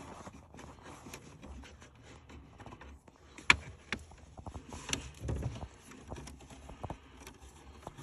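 Scattered small clicks, taps and knocks of hands handling wires, connectors and tools. The sharpest click comes about three and a half seconds in, and a duller knock follows a little after five seconds.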